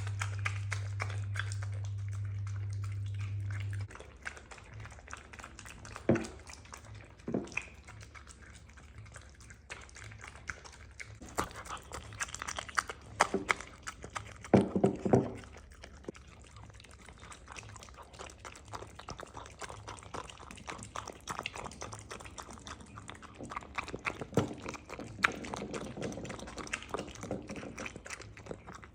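Dogs eating from their bowls, with many small irregular clicks and crunches and a few louder bursts, while a water filter drips. A steady low hum sounds for the first four seconds and then stops.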